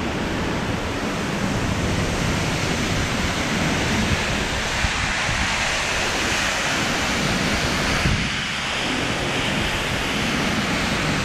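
Steady rush of South Falls, a tall waterfall plunging into its pool, heard close up from the trail behind the falling water.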